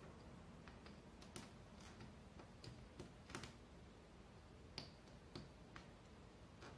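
Faint, irregular light clicks and ticks as white thread is wound and tugged around small metal nails on a string-art board, fingers and thread catching on the nail heads.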